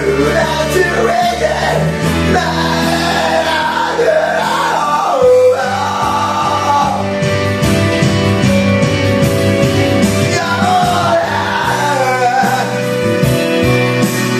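Karaoke: a man sings over a loud rock-style backing track played through the booth's microphone and speakers.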